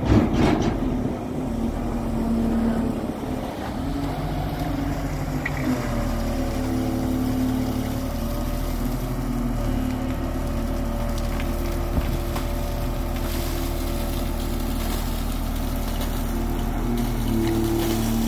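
JCB long-reach excavator's diesel engine running steadily under load, with whining tones from the machine that step up and down in pitch several times as the boom and bucket work.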